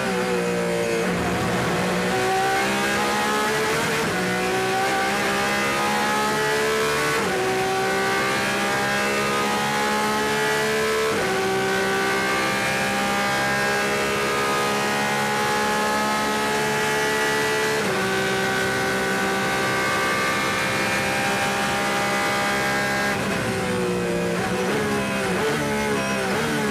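Porsche 911 RSR's flat-six racing engine at full throttle, heard from inside the car: the pitch climbs through the gears with four quick upshifts, each gear held longer than the last. Near the end the pitch falls as the car brakes and downshifts.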